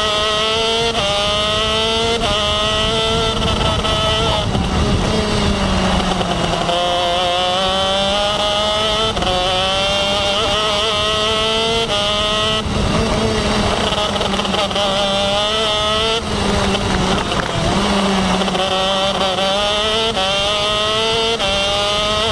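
KZ2 shifter kart's 125cc two-stroke engine at racing speed, heard onboard: its pitch climbs in short steps, dropping back briefly at each upshift through the gearbox. Several times it falls away for a second or two as the kart slows for a corner, then climbs through the gears again.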